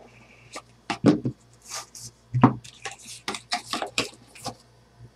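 Hands opening a small cardboard trading-card box and handling what is inside: a quick, uneven run of sharp clicks and taps with short rustling scrapes of cardboard and plastic.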